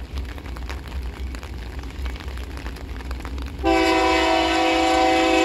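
GE AC44i diesel-electric locomotive's air horn sounding one long chord that starts about two-thirds of the way in, over a low steady rumble. It is the warning blast for the level crossing the train is approaching.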